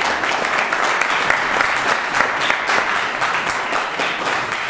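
Audience applause: many people clapping together in a dense patter that eases off slowly toward the end.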